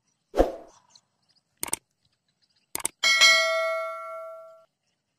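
Subscribe-button animation sound effects: a soft thump, a mouse click, a double click, then a bell ding that rings out and fades over about a second and a half.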